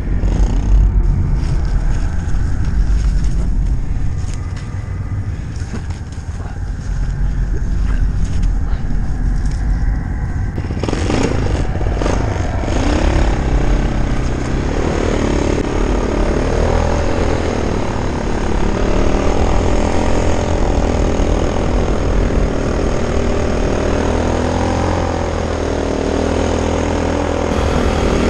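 Irbis Dingo T150 compact snowmobile's small engine running under load while driving through deep snow. From about halfway through, its pitch rises and falls with the throttle.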